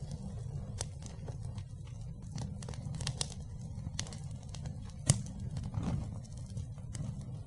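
Fire burning: a steady low rumble of flames with scattered crackles and pops, one sharp loud pop about five seconds in.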